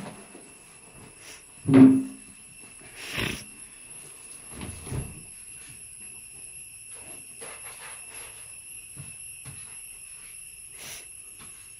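Knocks and thumps of a soft suitcase being carried out and loaded into a small hatchback's boot, the loudest about two seconds in and smaller ones over the next few seconds, over a steady high-pitched ringing in the background.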